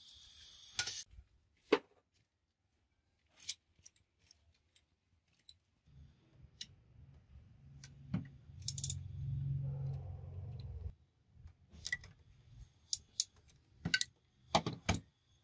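Scattered metallic clinks and ticks of hand tools against the rusty, fire-damaged housing of a truck air compressor being dismantled, the loudest a pair of sharp knocks near the end. A low rumble runs from about six to eleven seconds in.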